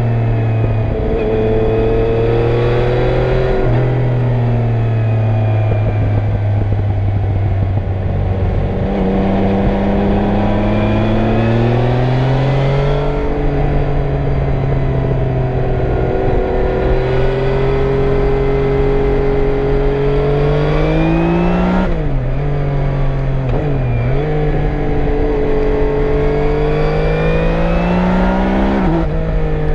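Yamaha Niken GT's 847 cc three-cylinder engine, with its stock exhaust, running on the move. The note climbs steadily under acceleration and drops sharply several times as the revs fall, most plainly around a third of the way in and again near the end.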